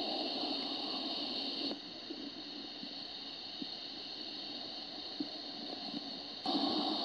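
Steady hiss with a strong high band. It drops in level about two seconds in and comes back near the end, with a few faint ticks in between.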